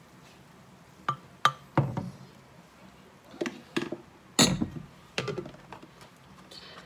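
Kitchenware being handled on a counter: a series of sharp, irregular knocks and clinks as a glass jar and containers are set down and picked up.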